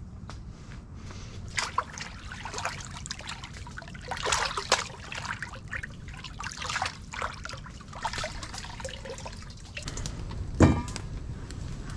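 Water splashing and trickling in irregular bursts while the freshly gutted stingray is rinsed by hand. A single sharper, louder sound comes about ten and a half seconds in.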